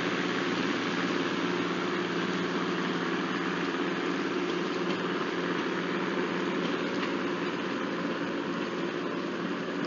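Engine of a departing trolley car running steadily, a low even hum that slowly fades as the car pulls away down the track.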